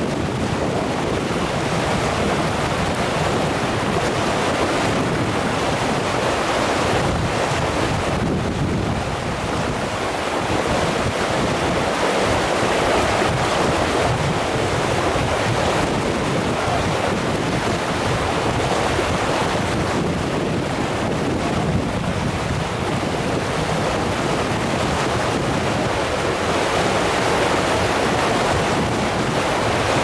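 River rapids rushing over rocks: a loud, steady roar of whitewater.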